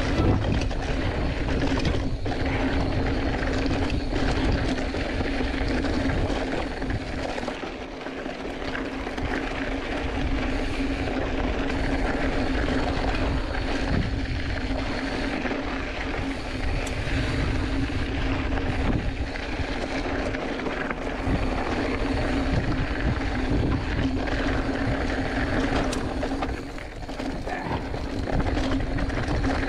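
Steady wind rush over a chest-mounted action camera's microphone and the rumble of a Giant Fathom 2 hardtail mountain bike's tyres rolling fast over rocky dirt trail, with a constant low hum and brief dips in level.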